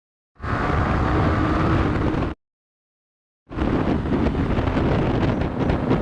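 Yamaha YZF-R15's single-cylinder engine running on the move under heavy wind noise on the microphone. The sound cuts in shortly after the start, drops to dead silence for about a second partway through, then returns.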